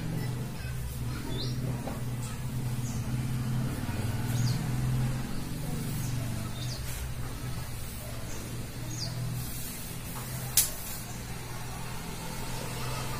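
Marker pen squeaking on a whiteboard in a few short strokes, over a steady low hum, with one sharp click about ten seconds in.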